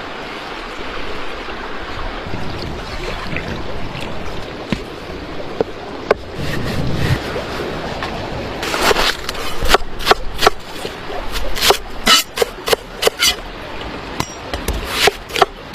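A steady rushing noise like running water, then from about halfway a run of sharp, irregular cracks and knocks.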